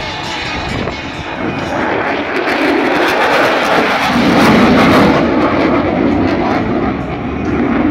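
Military aircraft flying past the crowd. Its engine noise builds to its loudest about four to five seconds in, then eases as it moves away.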